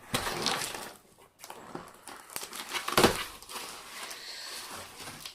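Packaging being handled as a box is unpacked by hand: rustling and crinkling of the wrapping, with a louder rustle about three seconds in.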